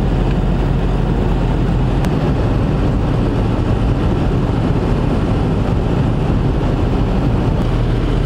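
Steady road noise inside a truck cab at highway speed: engine hum and tyre rumble, holding an even level throughout.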